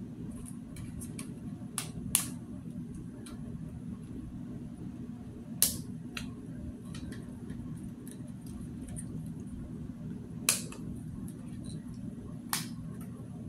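Toy doll-furniture parts clicking and knocking as they are fitted together: about six sharp clicks, some in close pairs, over a steady low hum.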